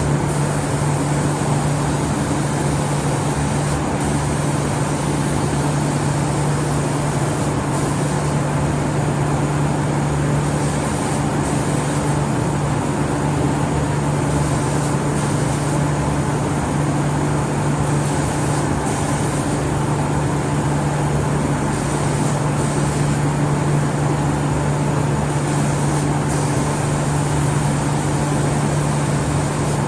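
Steady machine noise from a CNC spray painting machine and its booth: a constant low hum with a broad hiss over it, the high part of the hiss easing off for a few seconds at a time, several times.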